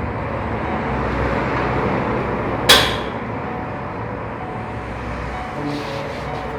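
A single sharp crack a little under three seconds in, dying away quickly, over a steady background noise.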